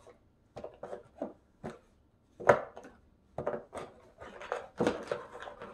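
Plastic poly mailer bags crinkling and rustling as they are handled, in irregular crackles, louder about halfway through and near the end.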